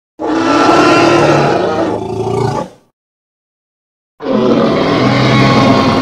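Two long Tyrannosaurus rex roar sound effects with a silent gap of about a second and a half between them. The second roar is still going at the end.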